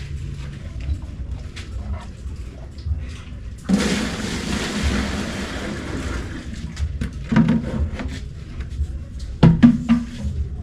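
Water pouring and splashing for about three seconds, starting a few seconds in, then a couple of knocks, like a container being set down.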